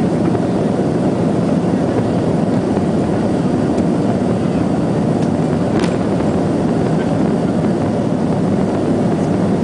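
Avro RJ100's four turbofan engines running at takeoff power: a loud, steady rumble.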